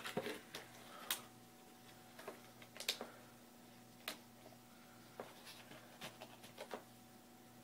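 Scattered light clicks and taps of small objects being handled while reaching around for a screwdriver, the sharpest about a second in and near three seconds, over a faint steady hum.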